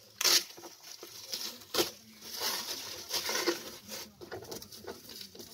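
Plastic stretch wrap being cut and pulled off a cardboard box: irregular crinkling and rustling, with two sharper clicks, one shortly after the start and one a little before two seconds in.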